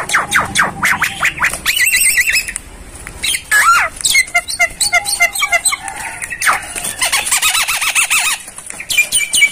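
Javan myna calling: fast runs of short chattering notes broken by a few loud, slurred squawks. It is the calling of a myna in breeding condition, wanting to mate.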